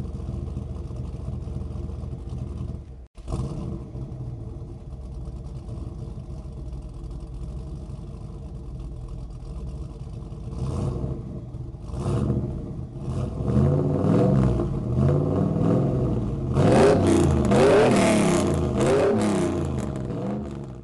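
Car engine idling with a steady low rumble, then revving repeatedly, its pitch rising and falling several times and loudest near the end; it cuts out briefly about three seconds in.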